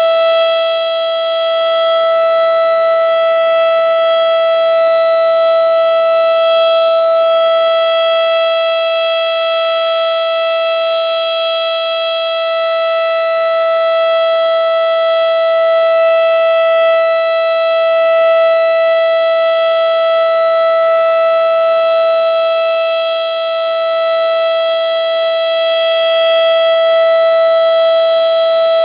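FS&S STH-10 outdoor warning siren sounding its steady Alert signal: one loud, continuous tone held at a constant pitch, its loudness rising and falling a little.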